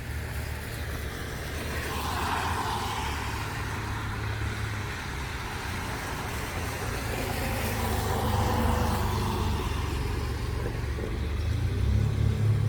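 Motor vehicles passing, two swells of passing noise a few seconds apart over a steady low rumble that grows stronger near the end.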